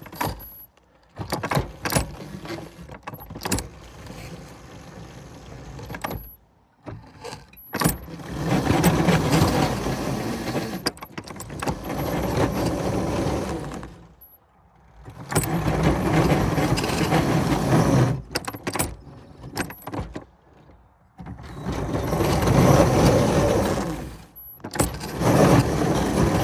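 Small railroad locomotives running hard under load as they push through deep snow, in several stretches that start and stop abruptly.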